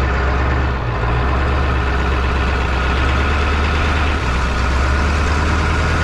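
A 1996 Ford F350's 7.3 Powerstroke V8 turbodiesel idling steadily, heard from outside the truck, with a steady hiss over the low engine hum.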